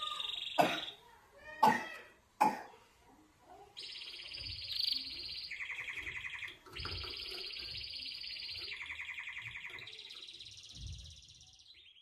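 Domestic canary singing: a long run of very fast trills, each held for a second or two before jumping to a new pitch, higher then lower. The song starts about four seconds in, after a few sharp, loud sounds, and soft thumps from the birds moving on their perches sound beneath it.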